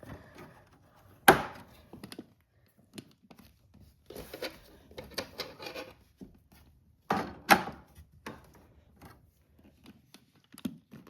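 Hard plastic toy barn parts being handled and pushed into place: scattered sharp knocks and clicks with rustling in between, the loudest knock about a second in and two more close together around seven seconds in.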